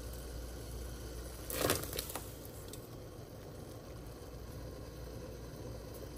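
Pot of water at a rolling boil, bubbling steadily, with a splash about one and a half seconds in as sliced ginger and garlic cloves are tipped into it.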